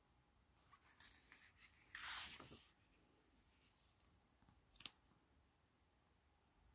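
A page of a hardcover picture book being turned by hand: paper rustling for about two seconds, with one louder swish in the middle, then a single short tap a little later.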